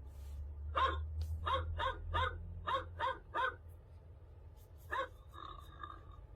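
Short, identical dog yips, mostly in evenly timed sets of three about a third of a second apart, like a played-back bark sound effect or alarm tone. A held steady tone follows near the end.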